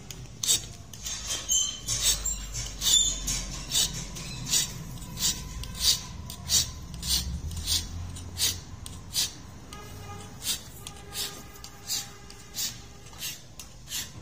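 Hand file rasping across a steel blade in steady, even strokes, about one and a half a second.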